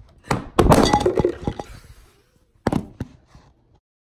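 Hard objects clinking and knocking together in a quick clatter, then a second, shorter clatter about two and a half seconds in.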